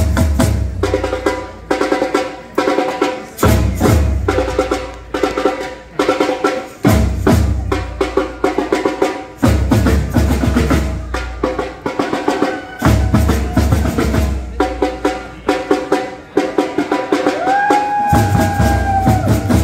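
Live drumline of marching drums and hand percussion playing a fast, driving groove of rapid hits, with deep low drum hits coming back every few seconds. A long held high note sounds near the end.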